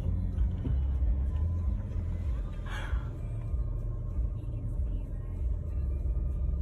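Low rumble of a motor vehicle running close by, with a brief rasping noise about three seconds in.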